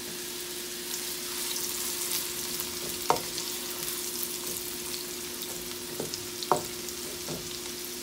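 Finely chopped onion frying in hot oil in a nonstick wok, sizzling steadily as it is cooked towards light pink. A wooden spoon stirs it, knocking against the pan a few times, over a steady low hum.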